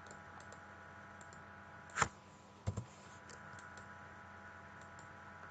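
Computer mouse clicks: a single sharp click about two seconds in, then a quick double click, over a faint steady electrical hum.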